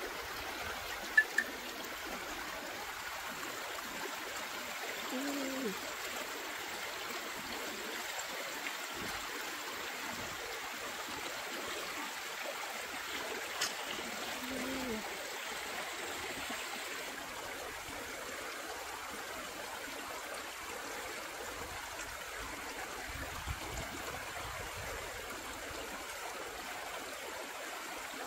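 Shallow rocky stream running steadily, water rushing and babbling over stones. Two sharp clicks about a second in stand out above the water, and a couple of brief low falling sounds come later.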